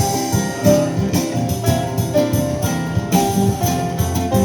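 Harp music: quick runs of plucked notes over low sustained bass notes.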